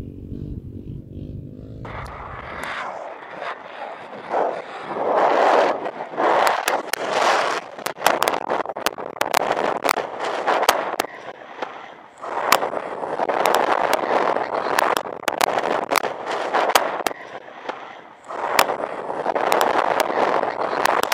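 A car driving fast over loose volcanic sand, heard at an open window: a rushing noise of wind and tyres that comes in gusts, full of sharp ticks and crackles. A low hum in the first two seconds gives way to it.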